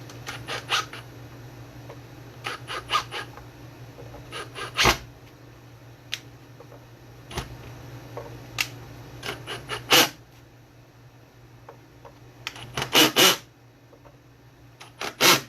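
Sharp clicks and taps of small metal parts being handled while a bass bridge is screwed down, coming in about six short clusters, the loudest near the end, over a low steady hum.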